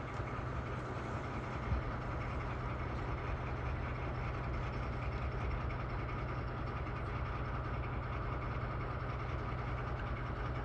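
HSB class 199.8 metre-gauge diesel-hydraulic locomotive (a rebuilt ex-standard-gauge V100) with its engine idling: a steady low hum.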